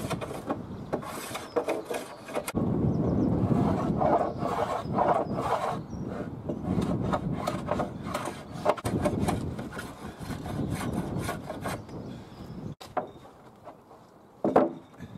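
Sandpaper rubbed by hand over softwood planks in rapid back-and-forth strokes, knocking the sharp edges off the cut trenches. The rubbing stops about thirteen seconds in, and a single wooden knock follows near the end as a plank is handled.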